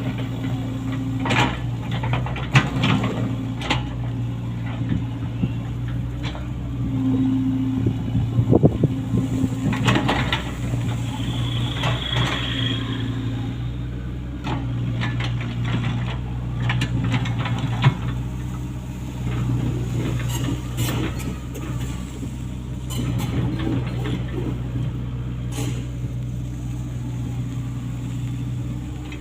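Komatsu PC75US-3 excavator's diesel engine running steadily, with scattered clanks and knocks and a brief high whine about twelve seconds in.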